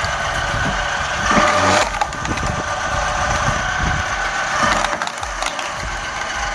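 An electrically driven firewood machine working through a log, with wood cracking and splintering over the steady machine noise; the loudest cracking comes about a second and a half in.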